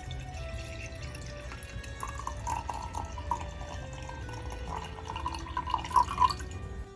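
Hot chai pouring from a small pot into a ceramic mug in a thin trickle, ending with a couple of louder drips near the end. Soft background music plays underneath.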